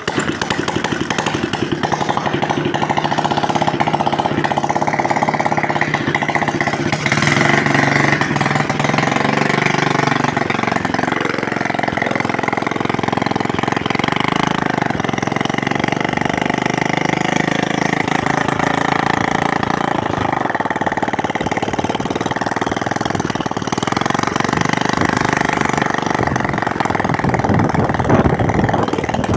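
Honda Biz 125 motorcycle's single-cylinder four-stroke engine running, its pitch sliding up and down for a few seconds about a quarter of the way in as the throttle is worked, otherwise holding a steady note.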